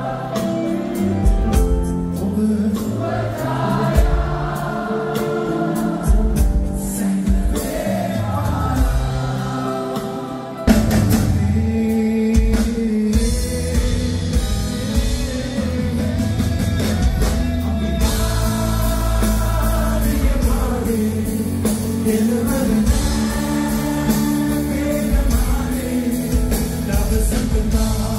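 A live band playing with a singer. About ten seconds in, the music jumps abruptly to a louder, fuller passage.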